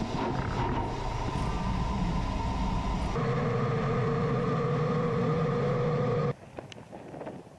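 Steady engine and airflow noise inside a military jet's cockpit, with the pitch of its whine shifting about three seconds in. It drops away suddenly about six seconds in, leaving fainter wind noise and a few clicks.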